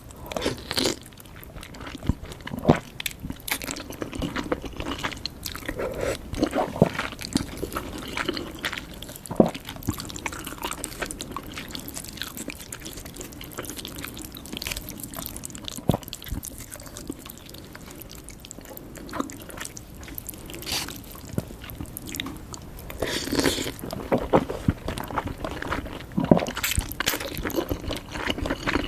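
A person eating noodles up close to the microphone: wet chewing and biting, with many short mouth clicks and smacks at an irregular pace.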